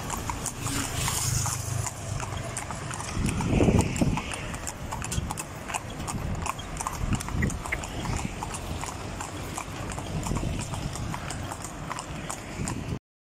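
Hooves of two carriage horses clip-clopping at a steady trot on an asphalt street, with a steady low rumble beneath and a louder low rumble swelling about four seconds in. The sound cuts out briefly near the end.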